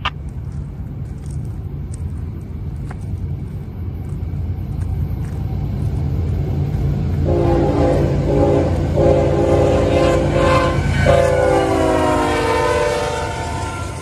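Union Pacific diesel locomotives rumbling as the train approaches. From about seven seconds in, the lead locomotive's air horn sounds a chord in three blasts: two short ones, then a longer one that drops in pitch as the locomotive passes.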